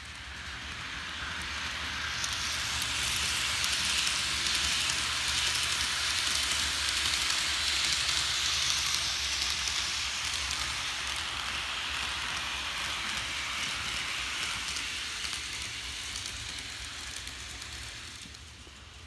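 Kato N-scale 787 series model train's nine cars rolling over the track, a rushing, rattling noise that swells as the train passes close by and fades near the end, over a faint steady low hum.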